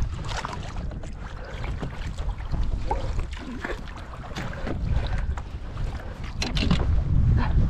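Wind buffeting the microphone in a low rumble, with water slapping against a kayak's hull in short, irregular knocks and splashes.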